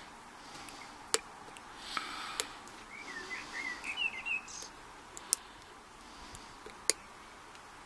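A few sharp, separate clicks from picking a five-pin Commando Blackout laminated padlock, the pick and security pins clicking inside the core as pins are felt and set, with faint scraping between them. A bird sings a short warbling phrase in the middle.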